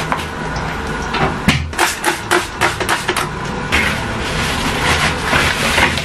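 A quick run of about eight light clicks and knocks, then a cloth rubbing back and forth across the plastic top of a washing machine.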